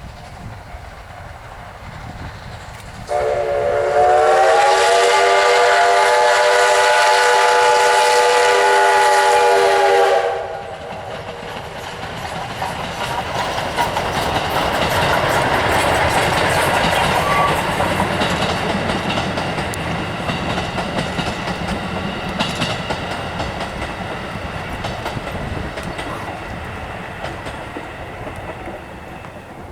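Steam locomotive whistle sounding one long blast of about seven seconds, starting a few seconds in. Then the steam train runs past, with wheels clattering over the rail joints, growing louder and then slowly fading away.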